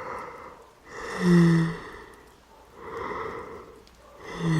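A woman's slow breaths close to the microphone, drawn in and let out in three or four soft swells, one of them a short voiced sigh about a second in.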